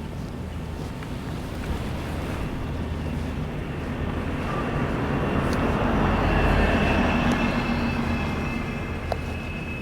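A large vehicle passing by on a city street, its noise building to a peak about six to seven seconds in and then fading, with a steady high whine in the second half.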